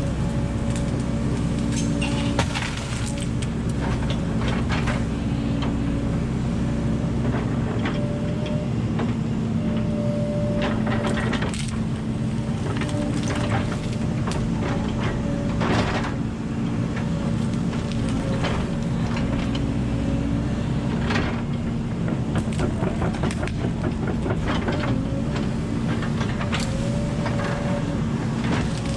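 Volvo 140 tracked excavator's diesel engine running steadily, with frequent sharp cracks and crunches as the machine moves and breaks up wood and brush.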